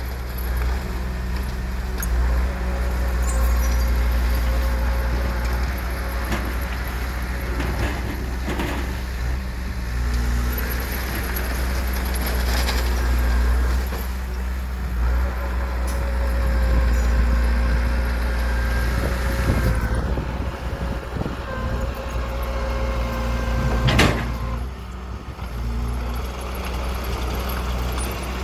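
Heavy diesel construction machinery running steadily, with a low engine drone and scattered clanks. A single sharp knock comes near the end.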